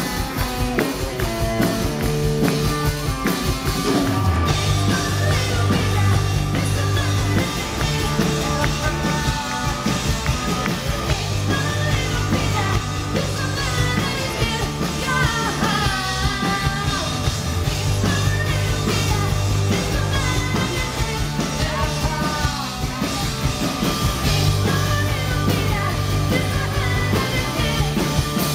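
Live rock band playing: a female singer's vocal over drums, electric guitar and held bass notes that change every couple of seconds, as heard from the audience at an outdoor concert.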